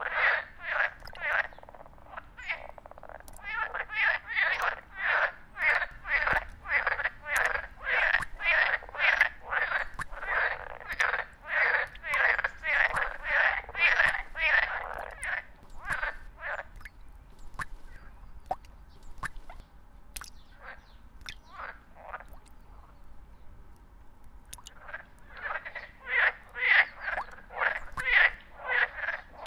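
A frog calling: a regular series of short croaks, about two a second, that breaks off for several seconds midway and starts again near the end.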